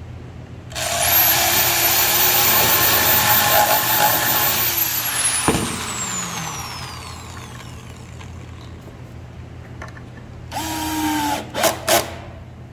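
Corded electric drill boring into the wooden side of a bookshelf for about four seconds with a high whine, then spinning down with a falling whine after the trigger is let go. Near the end a cordless drill/driver runs briefly, followed by a couple of clicks.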